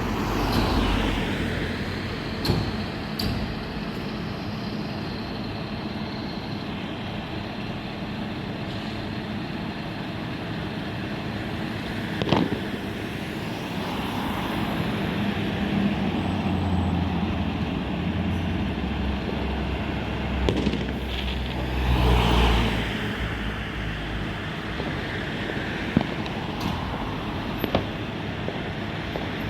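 Road traffic with a heavy vehicle rumbling past near the middle, and a few short sharp bangs.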